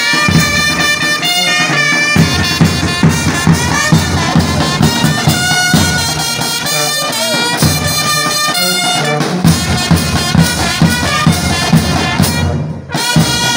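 Military brass band playing a march: trumpets and a sousaphone over bass drums beating a steady beat. The music drops out briefly near the end.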